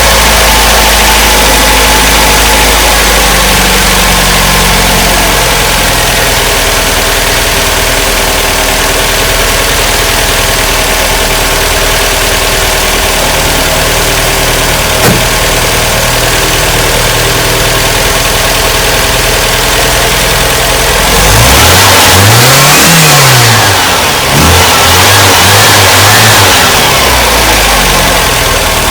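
MGB's four-cylinder B-series engine on twin SU HIF carburettors idling, then revved up and back down twice near the end. It runs lumpy, which the owner suspects is it not firing properly on all four plugs.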